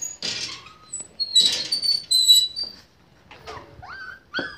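Puppies squeaking and whimpering in short, high-pitched cries, with a rising whimper near the end. A brief burst of noise comes just before the cries.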